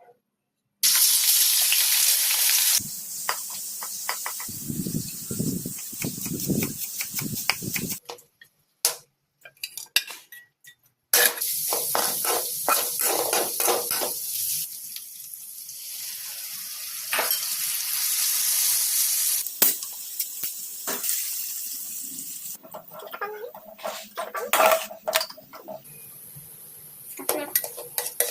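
Kitchen cooking sounds in several short stretches: food sizzling in a hot pan, with utensils clicking and scraping against cookware, and a few dull thuds in the first part.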